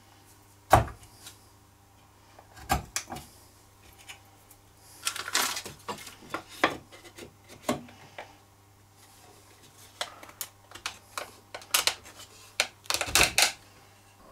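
Hand chisel paring the edge of a dovetailed wooden board in a vise, with scraping strokes and sharp wooden knocks, the loudest about a second in. Near the end comes a quick run of knocks as the dovetail pieces are pushed together to test the fit, after one corner was found a little tight.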